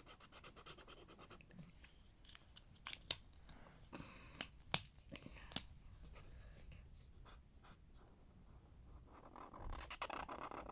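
Faint scratching of a colouring tool being stroked back and forth across a paper page, with quick runs of strokes near the start and a few sharp taps in the middle.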